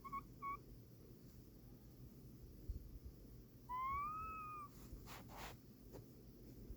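A sleeping cat making thin, pitched calls: two short ones at the start and one longer one about four seconds in that rises slightly and then holds. The uploader is unsure whether they are meows in her sleep or snoring.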